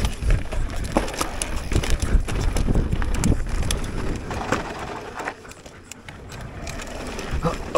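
Giant Reign mountain bike descending a dirt race trail at speed: tyres rolling over dirt and rocks, with many small knocks and rattles from the bike and a low rushing noise. It quietens for a second or two after about five seconds, then picks up again.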